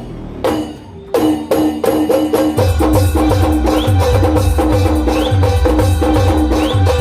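Live band music led by an electronic keyboard over drums and fast, even percussion. It drops away briefly at the start, the band comes back in about a second in, and a steady bass drum beat joins about two and a half seconds in.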